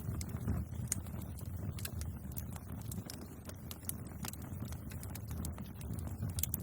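Bonfire of burning wood crackling, with irregular sharp pops and snaps over a steady low rumble.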